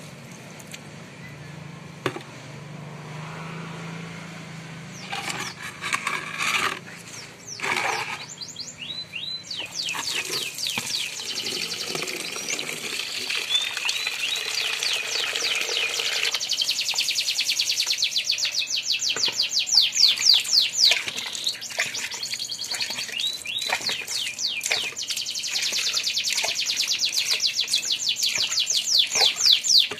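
A bird chirping in rapid runs of short, high, falling notes, starting about ten seconds in and loudest in the second half. Underneath, water pours from a hose into a plastic bucket and stops abruptly about sixteen seconds in.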